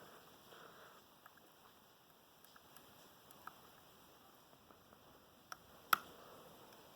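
Faint ticking and clicking of a lock pick and tension wrench working in a pin-tumbler challenge lock, with one sharp click about six seconds in and a smaller one just before it.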